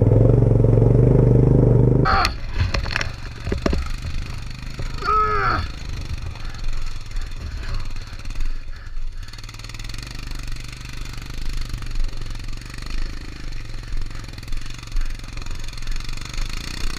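Royal Enfield Himalayan's 411 cc single-cylinder engine revving hard under load for about two seconds as the stuck bike is pushed, then running more quietly and steadily as it moves up the rocky trail, with scattered clicks and knocks of stones and the bike over rough ground.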